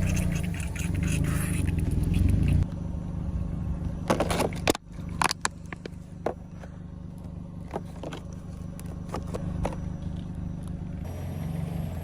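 Car engine running slowly with a steady low hum. A cluster of sharp cracks and crunches comes at about four to five and a half seconds, with a few more after: tyres crushing objects under the wheels.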